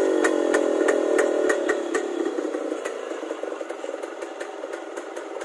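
Yamaha RX 100's single-cylinder two-stroke engine running through its silencer with the full-length perforated muffler insert fitted. The revs fall back over the first couple of seconds, then it idles more quietly.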